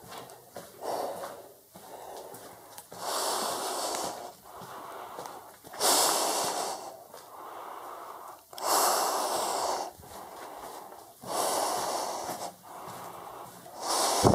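A person breathing heavily close to the microphone, one loud breath about every two and a half to three seconds, with quieter breaths in between.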